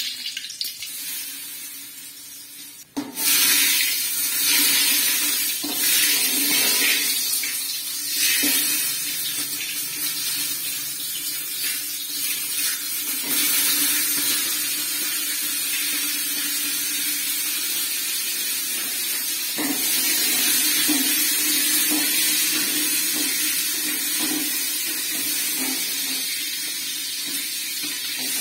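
Food sizzling loudly in hot oil in an aluminium cooking pot, setting off suddenly about three seconds in as something goes into the pot, then carrying on steadily while a metal ladle stirs with small knocks against the pot.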